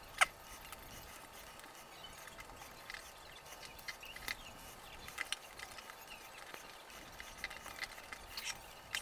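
Faint, scattered clicks and taps of small drone parts and connectors being handled, with one sharper click just after the start.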